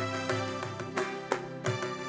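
Live band playing an instrumental passage: sustained keyboard and electric guitar over a pulsing bass with hand-drum strikes, one sharp strike standing out a little past the middle.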